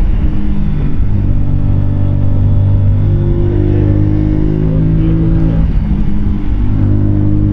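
Keeway K-Light 125's small V-twin engine running under way on a ride, its pitch dropping right at the start, rising again about a second in, then dipping briefly around six seconds before picking up again, as with a gear change or throttle lift.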